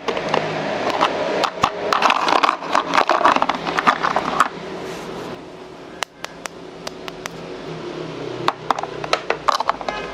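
Handling sounds from a toy and its packaging: a busy run of rapid clicks and taps over a rustling noise for about four and a half seconds, then sparser single clicks.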